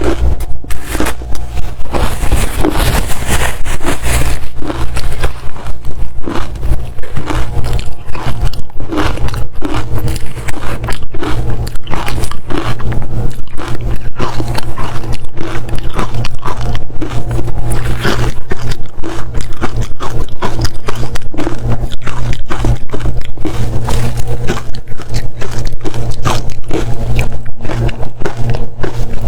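Close-up crunching of frozen matcha ice being bitten and chewed: dense, rapid, irregular cracking and crackling of dry-textured ice, loudest in the first few seconds.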